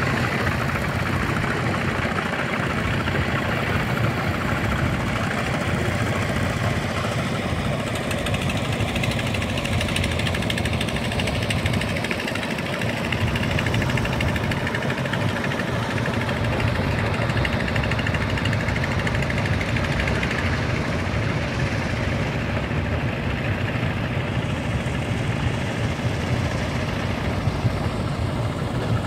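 Steady engine-like motor noise running without change, dense and even with most of its weight in the lower range.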